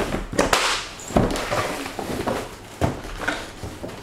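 Thick plastic wrapping crinkling and rustling as a plastic-wrapped rifle is lifted out of a cardboard box, with several sharp knocks and thuds against the cardboard and table, near the start, about a second in and just before three seconds.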